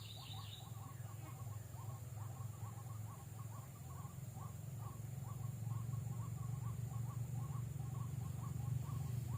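White-breasted waterhen calls: a steady, repetitive run of short notes, about three a second, over a low steady hum, with a brief higher chirp at the start.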